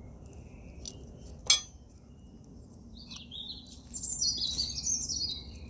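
A single sharp click about one and a half seconds in, then a songbird singing a run of high whistled notes that step downward in pitch over the last two and a half seconds.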